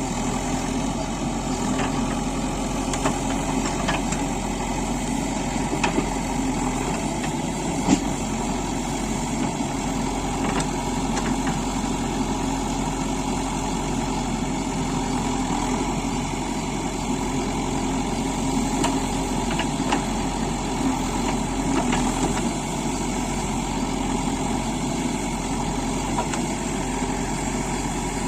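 Manitou Terex TLB 740S backhoe loader's diesel engine running steadily, with a few short knocks, the sharpest about eight seconds in.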